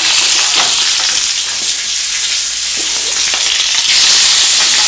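Slices of veal kidney sizzling in hot oil in a frying pan, seared over high heat: a loud, steady hiss with a few faint crackles.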